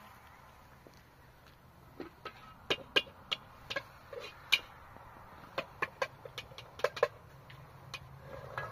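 A cooking utensil clinking and scraping against a metal pan over a wood fire: a run of sharp, irregular clicks, some with a short metallic ring, lasting about five seconds.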